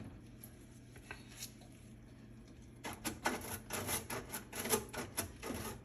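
A toothbrush scrubbing at the small screened light cover inside a microwave: rapid back-and-forth rubbing strokes, several a second, that begin about halfway in after a quiet stretch with a few faint clicks.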